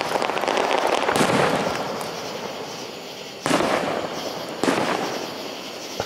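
Aerial fireworks display: shells bursting with three sharp bangs, about a second, three and a half and four and a half seconds in, and crackling between them.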